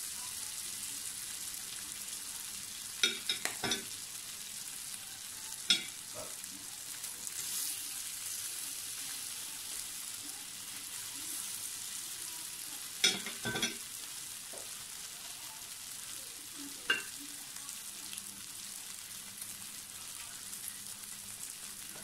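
Teriyaki-glazed pork ribs sizzling steadily on an electric grill plate. A handful of sharp clicks from metal tongs knocking against the plate as the ribs are moved come in small clusters several times.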